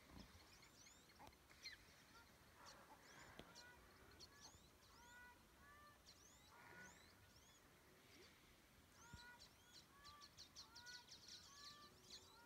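Faint bird calls: many short chirps and whistled notes from several birds, coming thickest near the end.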